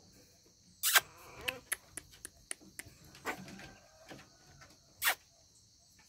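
Shih Tzu puppies moving about in a wire cage: three short sharp animal sounds, about a second in, near the middle and about five seconds in, and a quick run of light clicks and taps from paws on the cage in between. A steady high insect buzz runs underneath.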